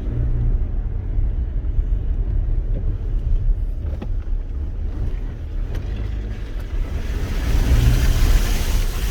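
A vehicle driving, with a steady low rumble of engine and tyres. A rushing hiss swells up near the end.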